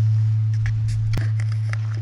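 Large bronze Buddhist temple bell, the evening bell, humming with a deep steady tone that slowly fades after being struck, with a few faint clicks over it.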